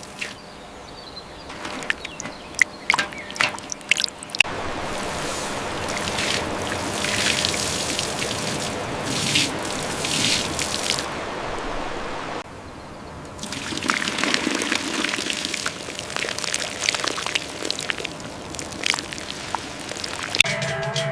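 Liquid pouring and trickling, with scattered sharp clicks and knocks between about two and four seconds in; the pouring sound changes abruptly twice.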